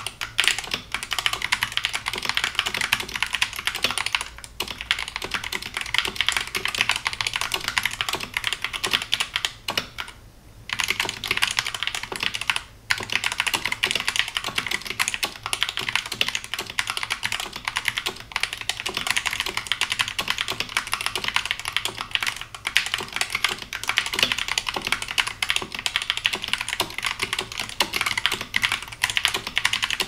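Fast touch-typing at about 95 words per minute on an Epomaker Skyloong SK61S 60% mechanical keyboard with Gateron Red linear switches in a plastic case: a rapid, continuous clatter of keystrokes. It pauses briefly about ten seconds in.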